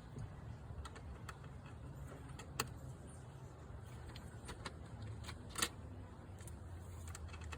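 Light clicks and clinks of screwdriver bits and a driver being handled during a bit change, scattered about once a second, with two louder clicks about a third and three-quarters of the way through, over a low steady hum.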